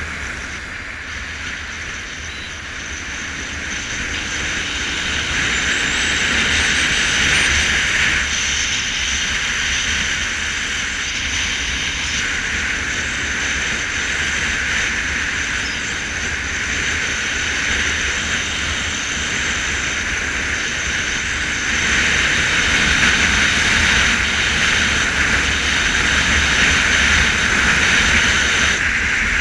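Motorcycle riding along at road speed: steady engine note under rushing wind and tyre noise, growing louder a few seconds in and again about two-thirds through.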